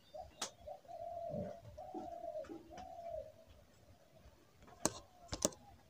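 Faint cooing of a bird of the pigeon family: a low, steady call in about four phrases over the first three seconds. A few sharp clicks come near the end.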